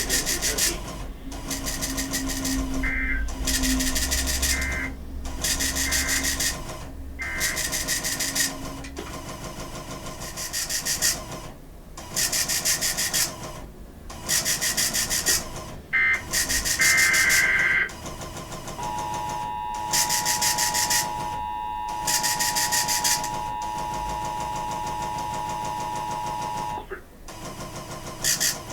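NOAA Weather Radio receiver audio: loud bursts of static that cut in and out about once a second, with short buzzy data-burst squawks now and then. A steady alert tone is held for about eight seconds in the second half.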